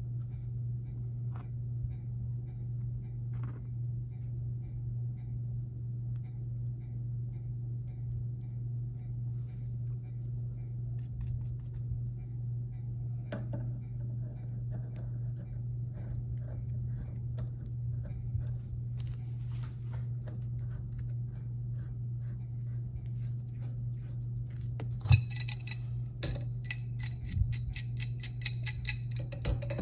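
Light metallic clicks and clinks of hand tools and steering-rack parts being handled, over a steady low hum. About five seconds from the end, a run of quick, evenly repeated metallic clicking sets in.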